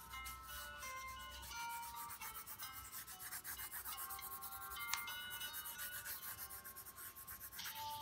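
Coloured pencil scratching on paper in quick back-and-forth shading strokes, with one sharp tick about five seconds in. Soft background music with sustained melodic notes plays underneath.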